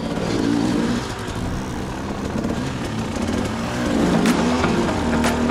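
Enduro motorcycle engine revving as the bike pulls away, its pitch rising and falling with the throttle. A couple of sharp clicks come near the end.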